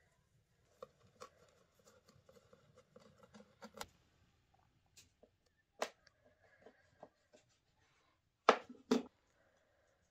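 Kitchen knife cutting through a strip of bread dough onto a wooden board: scattered light taps and scrapes, with two sharper knocks about half a second apart near the end as the blade strikes the board.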